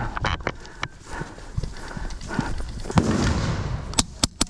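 Quick footsteps and gear clatter on hard ground. Near the end comes a fast string of sharp airsoft gun shots, about eight a second.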